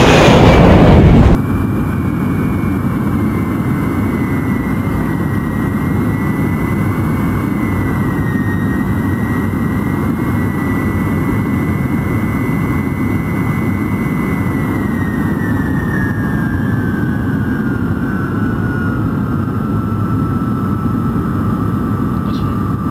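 Loud roar of a C-17 Globemaster III's jet engines at takeoff, cut off suddenly about a second in. Then the cabin sound inside a B-52 cockpit during landing: a steady engine roar with one high whine that holds level, then falls in pitch over the last third.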